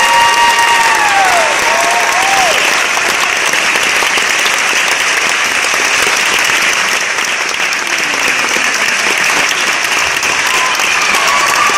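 Theatre audience applauding steadily as the music ends, with a long cheer from one person that falls away in the first two seconds or so.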